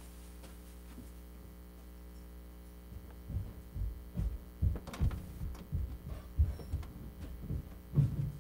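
Steady electrical hum with no one talking. From about three seconds in, it is broken by irregular soft low thumps and a few clicks.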